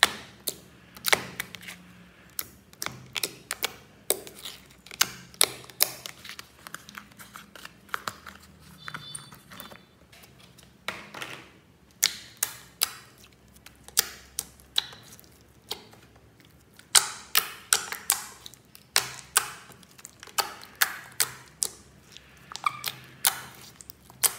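Glossy slime being squeezed and poked by fingers, popping and clicking in an irregular string of sharp little snaps, one to three a second, with a brief lull about midway.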